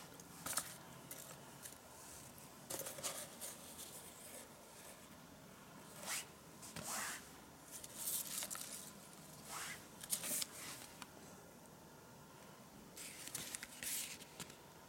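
Paper and cardboard gift packaging being handled by hand: a dark paper dust bag, ribbon and box lid rustle and slide against the box in a string of short, faint rustles and scrapes that come in bunches every second or two.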